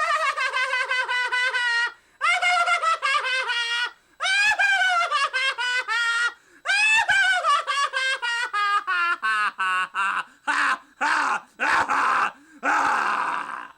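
A person's voice making deliberately strange sounds: quick high-pitched staccato sung notes and swooping falling glides that step down in pitch, then harsh raspy screams near the end.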